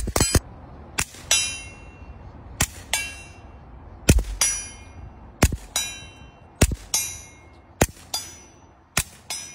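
Suppressed Taurus TX22 .22 LR pistol with a Sig SRD22x silencer firing about eight slow, even single shots, roughly one every second and a quarter. A fraction of a second after each shot comes the clang of a steel target being hit, ringing on briefly.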